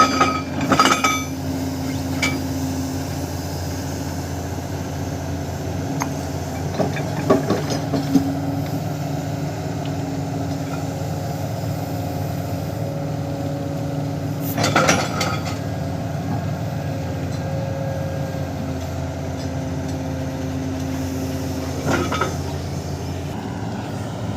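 Kobelco SK520 excavator's diesel engine running steadily under load, with a few scattered sharp metallic clanks from the breaker and boom rather than continuous hammering.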